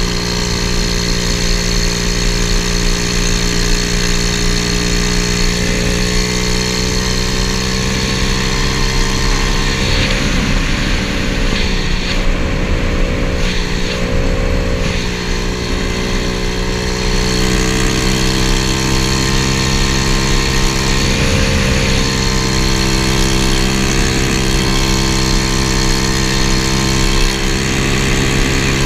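125cc single-cylinder four-stroke pit bike engine swapped into a 1981 Honda ATC70 mini trike, running steadily at cruising speed with wind rushing over the microphone. Around the middle the engine note dips and wavers as the rider eases off, then it settles back to a steady pull.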